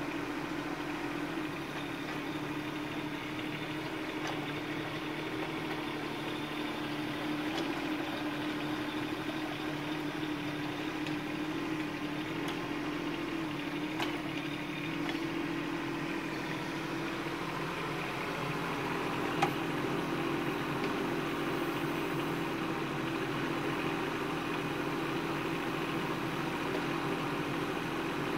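Bobcat 418 mini excavator's small diesel engine running steadily as it digs, with a single sharp knock about two-thirds of the way through.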